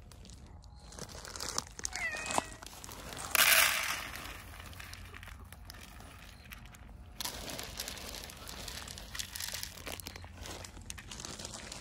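Dry cat food poured from a crinkling plastic bag onto plates, the loudest rush about three and a half seconds in and more rustling and rattling of kibble from about seven seconds on. A cat gives one short meow about two seconds in.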